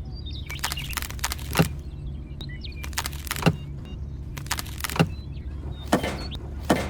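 Small engine, likely the mini tractor's, running steadily with a low hum. About seven sharp knocks or clacks come at irregular intervals over it.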